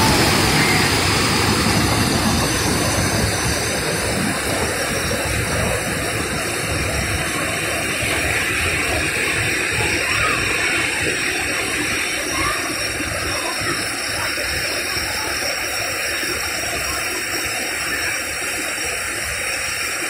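Natural waterfall: water rushing and splashing steadily over low rock ledges into a pool, a constant full roar of white water.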